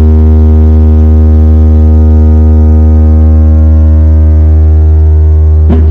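Speaker driven by a 500 W Class D amplifier playing a sustained deep bass test tone, very loud and steady, with a brief swooping hit just before the end before the tone carries on.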